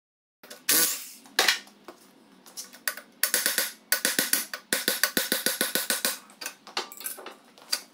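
Electric impact wrench hammering the pinion nut of a Dana 30 front axle in short and long bursts of fast rattling strikes, tightening the yoke down on the shims to set pinion bearing preload.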